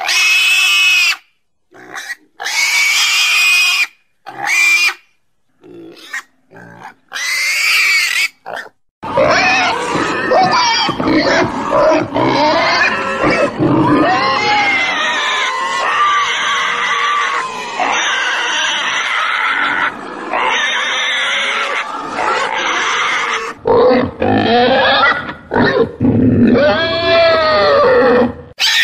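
Domestic pigs squealing and grunting: short separate squeals with silent gaps at first, then from about nine seconds in a continuous din of many overlapping calls.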